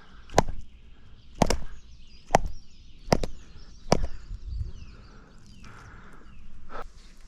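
Five sharp chopping blows, about a second apart, from the pike being prepared for cooking.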